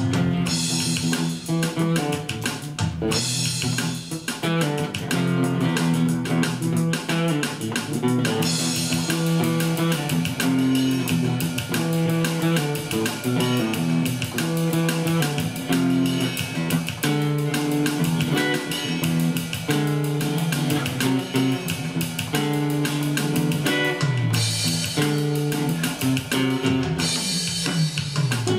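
Funk jam on guitar: busy, rhythmic guitar playing with low bass notes beneath.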